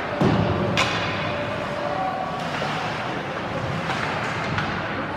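Ice hockey game heard from the stands: a steady wash of skates on ice and arena noise, with a heavy knock about a quarter second in and a sharp click of stick or puck just before the one-second mark.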